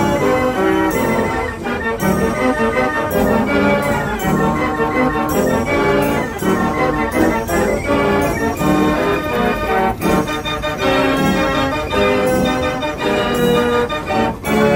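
Organ music with brass and bell tones, a quick run of changing notes at a steady loud level.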